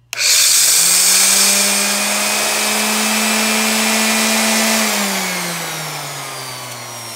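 Old Ryobi random orbit sander switched on and run in the air: it spins up to a steady, high-pitched whine, is switched off about five seconds in, and winds down with falling pitch. The owner says there is stuff clicking inside it and it doesn't sound healthy anymore.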